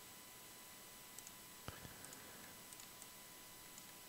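Near silence with faint computer mouse clicks, some in quick pairs, and one slightly louder click a little under two seconds in.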